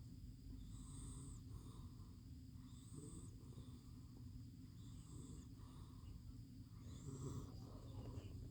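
A sleeping pet snoring softly, one breath about every two seconds.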